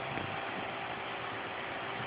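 Steady rushing of an electric fan running on high, between the snores of a sleeping English bulldog. A low snore trails off right at the start, and the next one begins at the very end.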